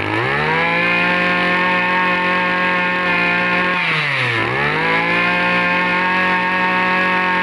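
Robin 26cc brush cutter engine revving up from idle to a steady high-speed run. The throttle drops back briefly about four seconds in, then opens up again.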